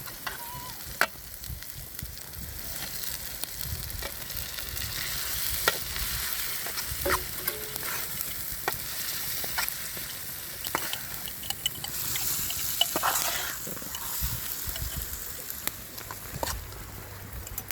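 Food sizzling in a pan over a fire while it is stirred, with sharp clicks of a utensil striking the pan about once a second.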